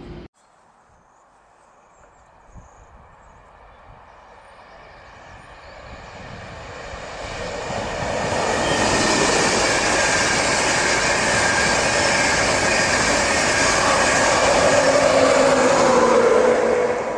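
Passenger train passing at speed: the rush and rumble of its wheels on the rails builds over several seconds as it approaches, then holds loud. Near the end a hum falls slightly in pitch.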